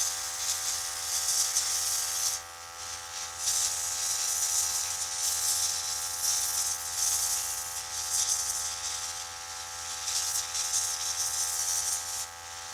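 Airbrush spraying paint: a hiss of air that pauses briefly about two seconds in and then runs on in long passes, over the steady hum of the small airbrush compressor.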